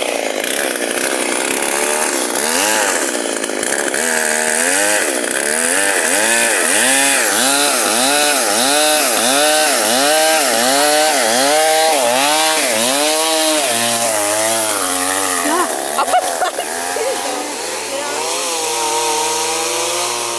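Stihl MS 382 two-stroke chainsaw cutting wood. Its engine pitch rises and falls in a quick, regular rhythm about twice a second for much of the time, then runs steadier and lower near the end.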